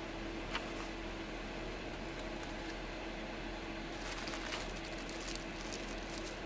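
A steady background hum with a low tone runs throughout. About four seconds in come faint rustles and taps as a cardboard box and a small plastic bag of hooks are handled.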